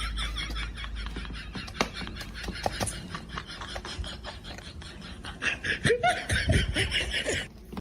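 People laughing, with scattered clicks and knocks.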